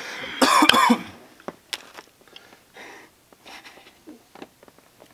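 A person coughing hard once, about half a second in, followed by faint scattered clicks and rustling.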